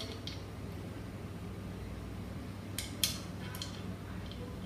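Small metallic clicks of a hydraulic rim brake and its washers being handled and fitted onto a bicycle fork's brake boss: a couple at the start and a cluster about three seconds in, over a steady low hum.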